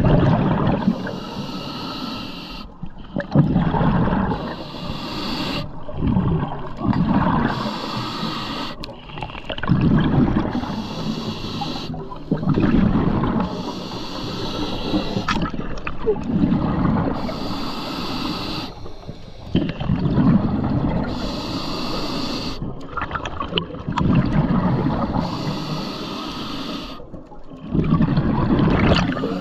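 Underwater breathing through a scuba regulator, heard from the diver's own camera: a hiss alternating with a bubbling rush of exhaled air, repeating about every two seconds.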